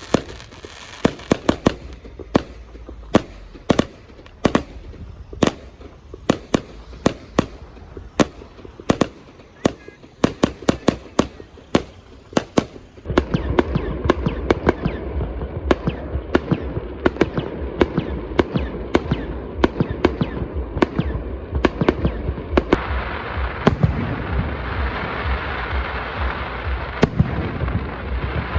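Fireworks display going off: a rapid string of sharp bangs and crackling reports, several a second. About halfway through the background noise becomes markedly louder under the bangs.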